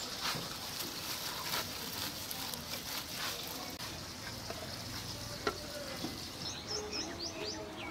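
Steady background hiss with a single light click about five and a half seconds in as a ceramic plate is set over a clay pot, and a few quick high bird chirps near the end.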